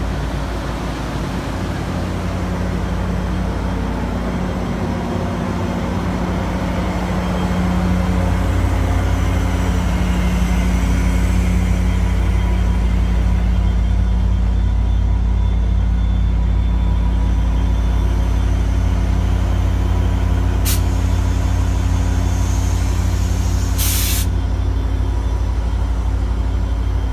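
EMD F59PH diesel locomotive idling with a steady low engine drone, getting louder over the first eight seconds or so. Near the end come two short hisses of air, the second a little longer.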